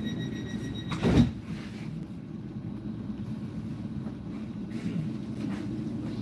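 Commuter train at a platform: a steady high tone stops as the doors shut with a single knock about a second in, followed by the train's low steady rumble as it starts to move off.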